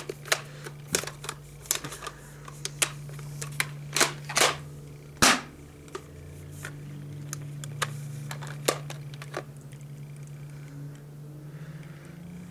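Plastic clicking and clacking from a spring airsoft shotgun and its shells being worked by hand, with a few louder snaps about four to five seconds in, over a steady low hum.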